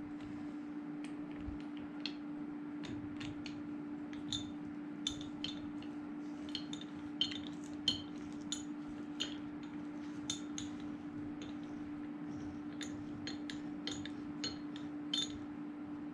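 Steel chain of a chain pipe vise clinking in irregular light metallic clicks as it is handled and fitted into the vise, over a steady low hum.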